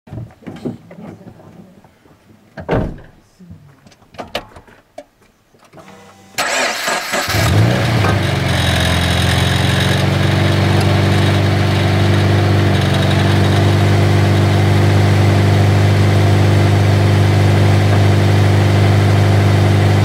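Toyota 86 / Subaru BRZ FA20 flat-four engine cranked and started about six seconds in, then running at a steady idle. A high-pitched 'kiri-kiri' creaking comes from the exhaust pipe near the catalytic converter, caused by the pipe working loose after two of its retaining bolts fell out.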